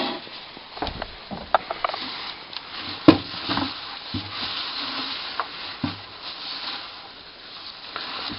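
Shredded paper bedding rustling as a hand rummages through it, with a few light knocks, one sharper about three seconds in.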